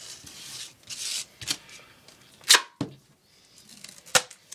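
Duct tape being pulled off the roll in two short rips, then two sharp clicks or snaps of tape and tools being handled, the first about two and a half seconds in and the loudest.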